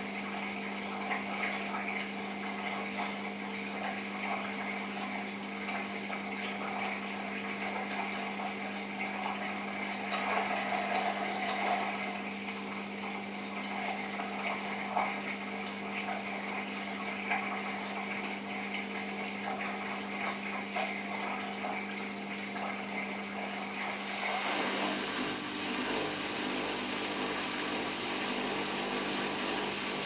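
Samsung WF8804RPA washing machine's drain pump humming steadily with water gurgling through it. About 25 seconds in the sound changes and a deeper motor hum joins.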